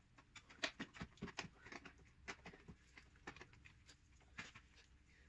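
Scattered light clicks and knocks at an irregular pace: hand tools and metal parts being handled while undoing bolts on the underside of a gearbox.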